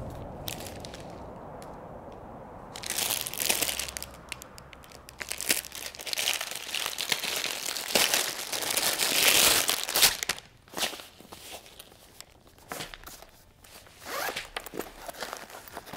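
Clear plastic wrapping crinkling and tearing as it is pulled off a fabric first aid kit pouch, loudest in the middle. Near the end come quieter rustles and short rasps as the pouch's zipper is opened.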